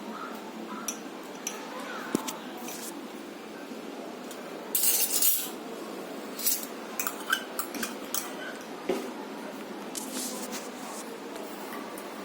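Spoon stirring and scraping in a cooking pot of simmering liquid: clinks and scrapes against the pot, loudest about five seconds in, over a steady low hiss.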